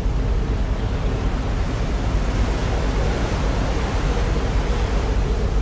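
Steady low rushing noise, heaviest in the low end, with no breaks or sharp hits: wind buffeting the microphone.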